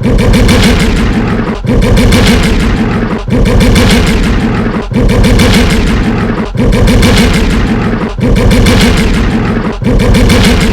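Sebulba's podracer engine sound effect: a loud, steady engine drone with a wavering low buzz, repeating in a loop with a short dip about every second and a half.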